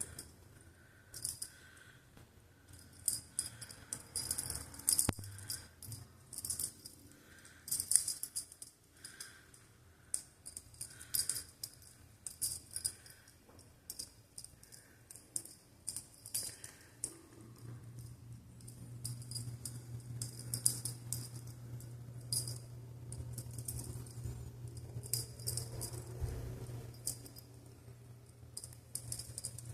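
Irregular light clicking and rattling, small hard things knocking together in quick, uneven bursts. A steady low hum joins in a little past halfway.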